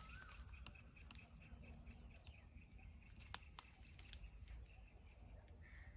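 Near silence: faint outdoor background with a soft bird chirp and a few light clicks.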